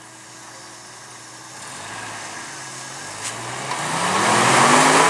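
Jeep engine revving up under load while rock crawling, rising in pitch and growing much louder through the second half. A rushing noise swells with it, and there is a short sharp knock a little over three seconds in.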